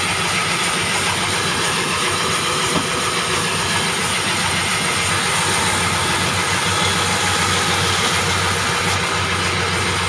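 Large vertical band saw running steadily while short green logs are pushed through its blade and cross-cut, a constant machine noise with a low hum underneath.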